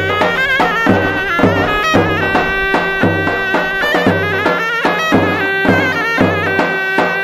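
Turkish folk dance music: a reedy wind instrument plays a high, ornamented melody over a steady drum beat.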